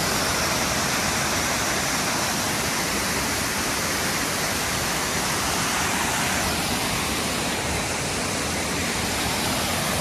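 Waterfall cascading over rock into a pool, a steady rush of falling water.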